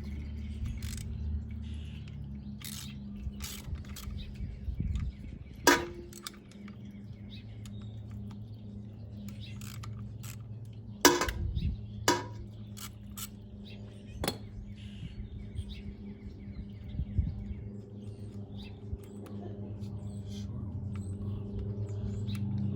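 Scattered metallic clinks and taps of hand tools and small bolts being handled on a motorcycle during an oil change, with a few sharper, louder clinks, over a steady low hum.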